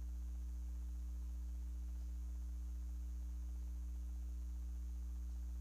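Steady low electrical mains hum with fainter higher hum tones above it, and no other sound standing out.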